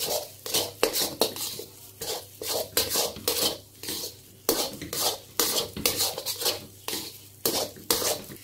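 Steel spatula scraping and knocking against a metal kadai as thick, dry suji and besan halwa is stirred and fried until the oil separates. The strokes come in quick repeated scrapes, about two to three a second, with a short pause near the middle.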